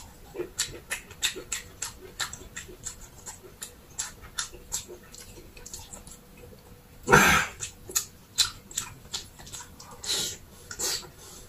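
Close-up mouth sounds of a person eating: many short wet clicks of chewing and lip-smacking, with one louder, longer burst of noise about seven seconds in.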